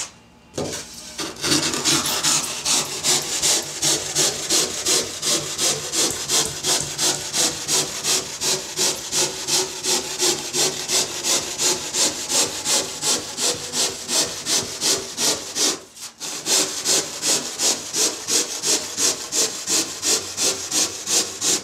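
Handsaw cutting through a foam surfboard blank in steady back-and-forth strokes, about two to three a second, starting about a second and a half in, with a brief pause past the middle.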